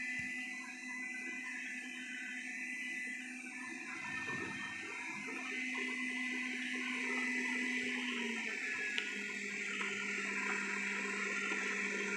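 Robot vacuum mop running: a steady whir from its motor and brushes with a high, thin whine over it. A lower hum dips slightly and stops about eight seconds in.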